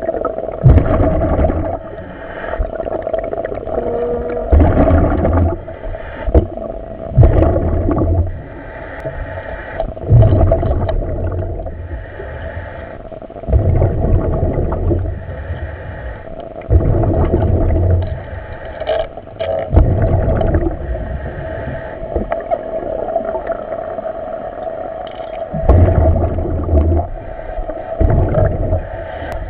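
A commercial diver breathing underwater, with exhaust bubbles rushing out in surges every three to four seconds over a steady hum.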